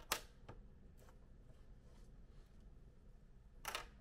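Handling of a glass picture frame and its thin frame rails on a wooden desk: a sharp click just after the start, a few fainter clicks, and a brief scrape near the end.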